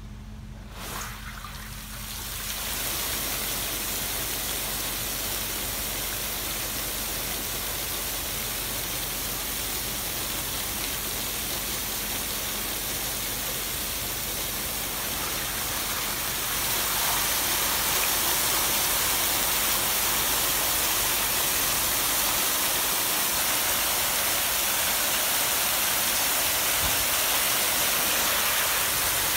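A ring of fountain jets starts up about two seconds in and builds to a steady rush of spraying water splashing into the basin. It grows louder about halfway through.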